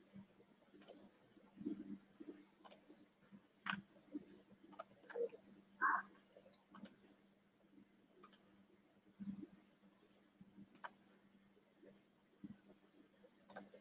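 Scattered, irregular clicks and taps of a computer mouse and keyboard, about a dozen, faint, over a low steady hum.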